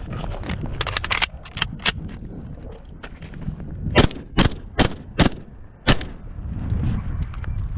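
Norinco SKS semi-automatic rifle in 7.62×39 fired five times in quick succession, roughly two to three shots a second, about four to six seconds in. A few lighter sharp knocks come about a second in.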